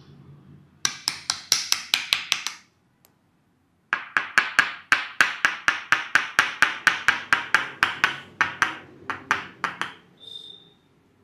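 Percussive hand massage: a barber's hands slapping and chopping on a client in quick, even strikes, about five to six a second. A short run stops briefly, then a longer run of about six seconds follows.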